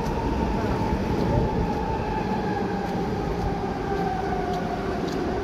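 Electric passenger train passing close below: a steady rumble of wheels on rails, with a whine that slowly falls in pitch.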